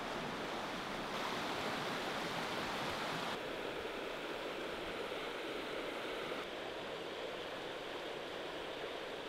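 Steady rush of running water close by, an even hiss without distinct splashes; its tone shifts slightly a few times.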